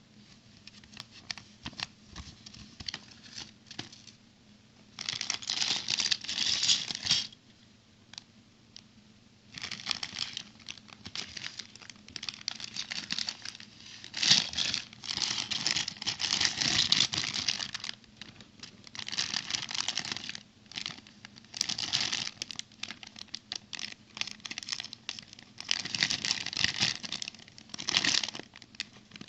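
Brick-set packaging being crinkled and torn open in repeated bouts, with small ticks and clicks in between.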